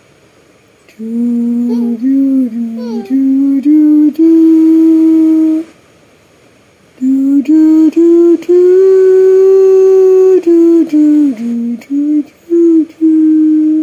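A person humming a slow lullaby tune close to the microphone: held notes stepping up and down in pitch, in two phrases with a pause of about a second and a half between them.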